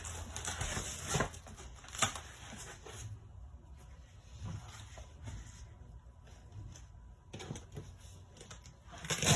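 Rustling and handling of a folding canvas photo light box as it is opened up, with a couple of sharp knocks in the first two seconds.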